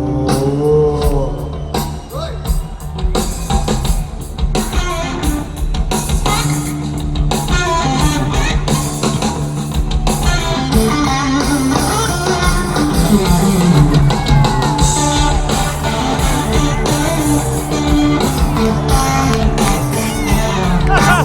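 Heavy metal band playing live: electric guitar over bass and a drum kit, with some singing.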